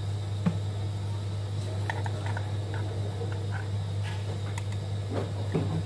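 A steady low hum, with a few light clicks and taps as a hot glue gun and the LED board are handled.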